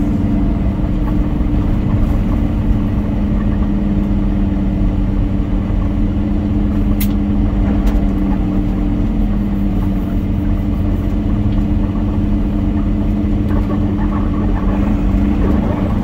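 Semi truck's diesel engine and tyres droning steadily at highway cruising speed, heard from inside the cab, with two steady low hum tones. A single brief click comes about halfway through.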